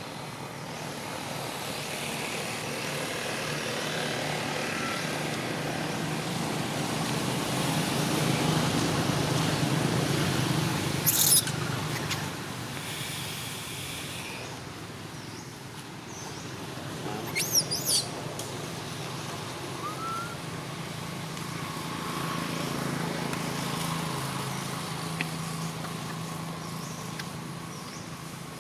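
Outdoor ambience: a steady rushing noise that swells and fades twice, like traffic passing, with a couple of brief high chirps partway through.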